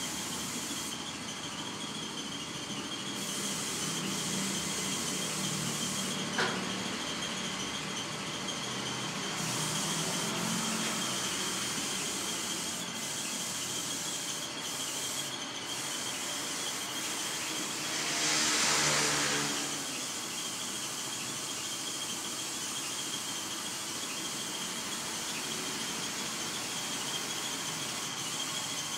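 Compressed-air spray gun hissing steadily while spraying white epoxy primer, with one louder blast of about a second and a half roughly two-thirds of the way through.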